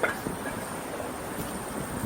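Steady street noise of passing traffic with wind buffeting the microphone, and a brief sharp knock right at the start.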